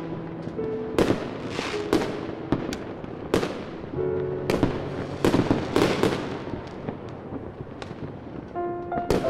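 Fireworks bursting: a string of irregular sharp bangs, one or two a second, each dying away, over background music with held notes.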